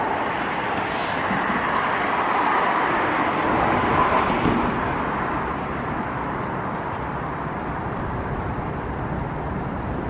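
Road traffic passing close by: a steady rush of tyre and engine noise that swells to its loudest about four seconds in, then settles into an even hum.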